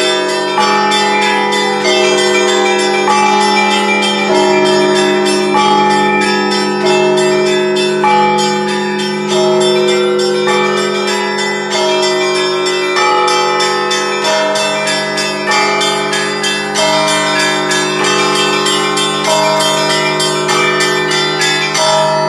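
Russian Orthodox church bells rung by a bell ringer in a festive peal: quick, dense strikes on the small bells over a steady low ring from the larger bells, with an accented strike about every second and a bit.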